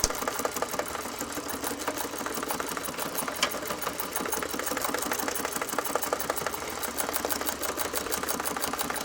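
Heavy-duty sewing machine stitching steadily, its needle driving through 1/8-inch plastic and skate leather in a fast, even clatter.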